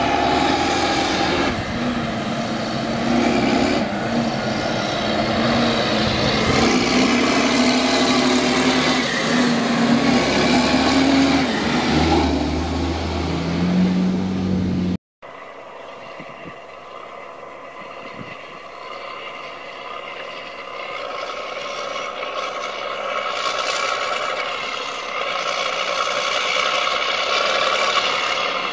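A large farm tractor's diesel engine running loud, its pitch shifting as it comes closer. After an abrupt cut, a yellow rubber-tracked tractor's engine grows steadily louder as it drives toward the listener.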